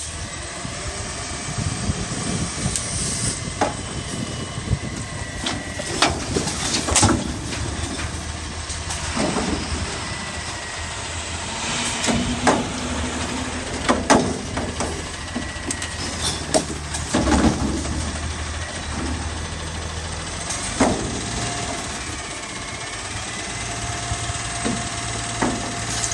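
Front-load garbage truck's hydraulic fork arms lifting a Curotto-Can carry can over the cab and dumping it into the hopper: the engine runs under a steady hydraulic whine, and the can bangs and clanks about seven times as it is tipped and shaken out.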